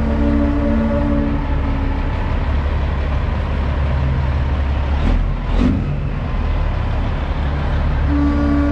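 Big-rig air horn sounding a multi-note chord over the steady low rumble of diesel truck engines. The horn stops about a second and a half in and comes back near the end, with two brief sharp bursts about half a second apart in the middle.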